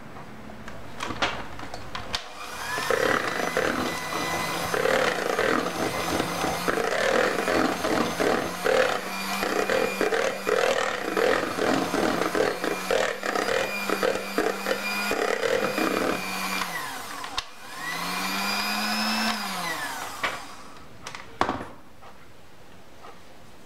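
Electric hand mixer running with its beaters in a bowl of thick cream mixture, beating whipped cream into a Nutella cheesecake filling. It runs steadily for about fifteen seconds after a couple of clicks at the start, stops, then runs once more for about two seconds, its pitch rising and falling as it speeds up and winds down.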